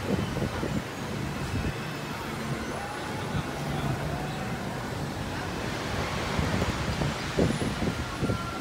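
Outdoor amusement-park ambience: a steady low rumble with faint distant voices, and wind buffeting the microphone near the start and again near the end.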